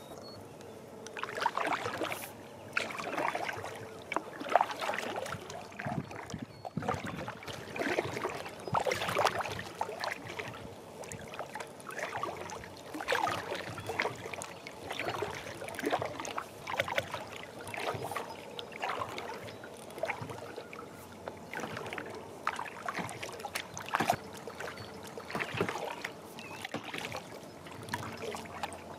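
Kayak paddle strokes: the blade dipping and splashing into lake water about once a second, starting about a second in, with water trickling off the paddle between strokes.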